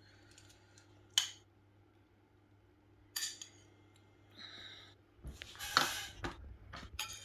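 Kitchen handling sounds of utensils and dishes: a sharp click about a second in, a few brief scrapes and rustles, then a busier run of knocks and handling near the end.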